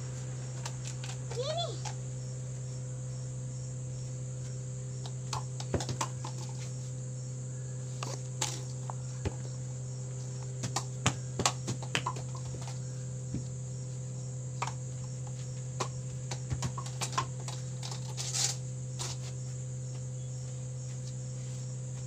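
Crickets chirping steadily over a low steady hum, with scattered light clicks and knocks, a few louder ones in the middle and near the end.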